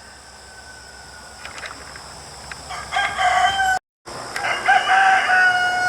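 Rooster crowing: a faint crow early on, then a loud, long crow that starts about three seconds in. It is interrupted by a brief gap of silence and goes on to a long held final note.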